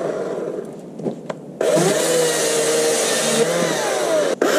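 Two-stroke chainsaw idling low, then revved sharply to full speed about a second and a half in and held there while cutting through a log. Its pitch falls as the throttle eases near the end, a brief break follows, and it is revved high again.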